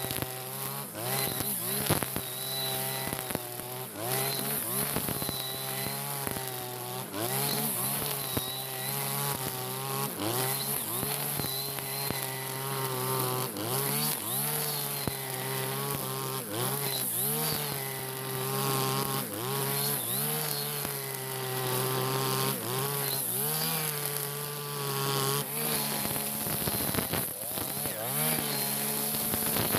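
Backpack brush cutter engine running at high revs while its string-trimmer head cuts tall grass. The pitch repeatedly dips and climbs back as the line bites into the grass and the throttle is worked. The machine has just been serviced and runs strongly under load.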